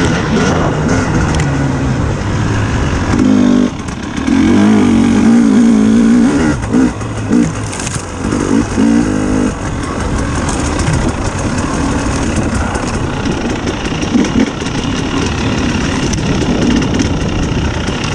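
Dirt bike engine running as the bike is ridden along a trail, with several short bursts of revving in the middle.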